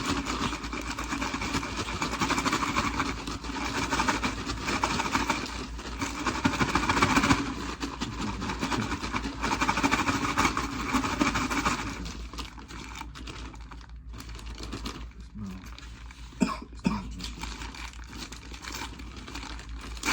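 Takis fries shaken hard inside their paper fry bag to coat them in seasoning: a dense rattling rustle for about twelve seconds, then quieter paper handling with a few clicks.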